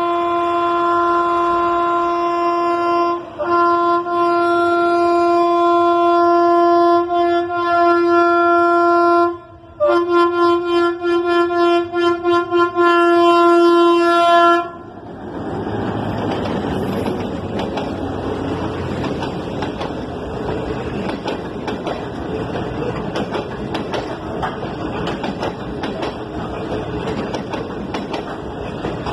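Diesel locomotive horn blowing for a level crossing: a long blast, a second longer one, then a string of short blasts, stopping about 15 seconds in. The passenger train then rolls past close by with a steady noisy rush and rapid clatter of wheels on the rails.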